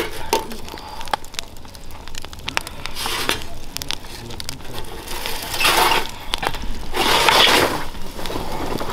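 Open wood fire crackling, with sharp pops throughout and three louder rushing bursts of noise, about three, five and a half and seven seconds in.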